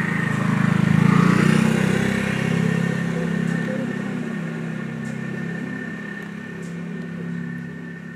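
A motor engine running steadily with a low hum, loudest about a second in and then slowly fading, as if a vehicle is moving away.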